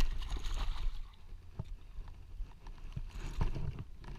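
Water splashing and sloshing as a hooked carp is handled and landed at the water's edge. A sharp knock comes right at the start, with scattered smaller knocks and a louder burst of splashing a little past three seconds in. Wind rumbles on the microphone in the first second or so.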